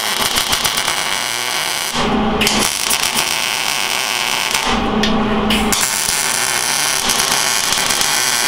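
MIG welder arc crackling as steel pieces are welded onto a steel jig, in three runs with short pauses between them. A steady low hum shows in the pauses.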